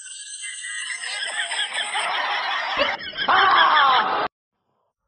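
Laughter, a snickering chuckle that builds from about a second in, is loudest near the end, and cuts off abruptly.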